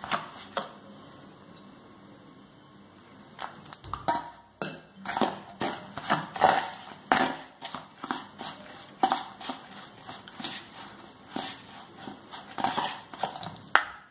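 Crumbly roasted rice flour being mixed by hand with hot water in a stainless steel bowl, the start of kneading the dough. Irregular rubbing and scraping strokes against the steel begin a few seconds in and continue at an uneven pace.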